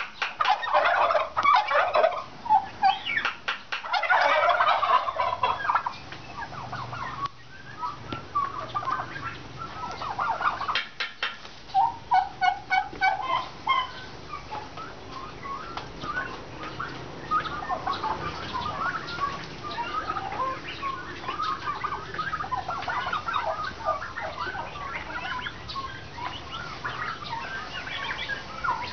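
A flock of white domestic turkeys calling together, many voices overlapping. Louder runs of rapid, stuttering calls come in the first few seconds and again about eleven seconds in, then the calling settles into a steady, busy chatter.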